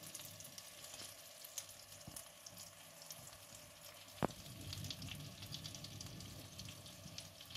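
Bread sandwiches frying in melted butter in a preheated pan: a faint, steady sizzle with fine crackling. There is a single sharp click about four seconds in.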